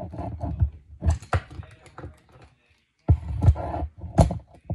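Uneven clusters of clicks, taps and light knocks as small knife parts and a hand driver are handled and set down on a workbench while a spring-loaded automatic knife is taken apart.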